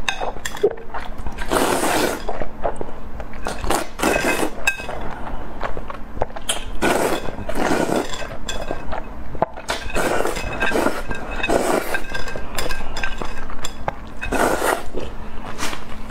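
Noodles being slurped up from a bowl in a string of long, wet slurps, with short clicks between them.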